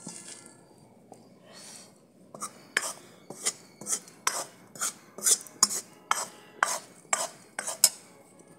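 Steel ladle stirring dry-roasted rice flour in a karahi, scraping and clinking against the metal pan. It starts with a few soft strokes, then from about two seconds in settles into an even rhythm of about two clinks a second that stops just before the end.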